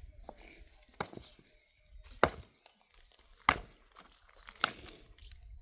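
Four sharp chopping strikes at an even pace, about one every second and a quarter.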